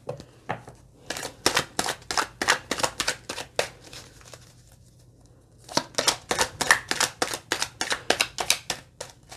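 Tarot cards being shuffled by hand: a quick run of papery flicks, about four or five a second, in two bouts with a short pause between.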